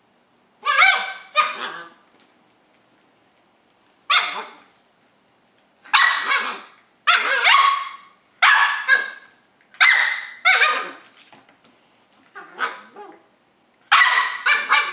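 Löwchen puppy barking about a dozen times, sharp high yaps singly and in pairs with short pauses between. These are play barks, aimed at a cat the puppy is trying to get to play.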